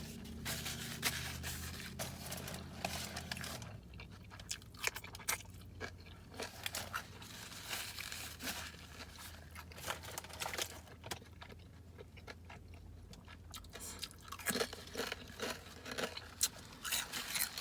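Close-miked eating: a person chewing and crunching food with irregular wet clicks and crackles, typical of mukbang eating sounds.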